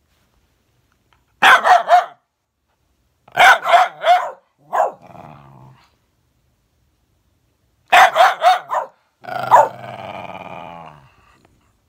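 A dog barking in quick runs of three or four barks. A single bark in the middle trails into a short growl, and a longer drawn-out growling howl comes near the end.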